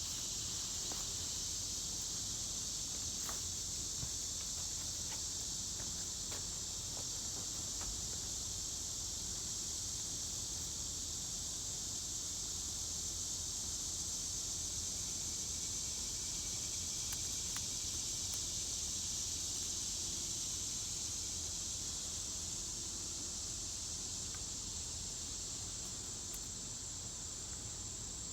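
Steady, high-pitched insect chorus, with a few faint scattered clicks.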